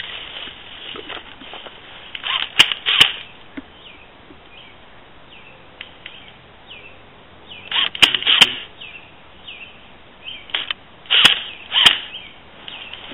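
Footsteps crunching through dry leaf litter, in three short pairs of steps, each with a sharp crack.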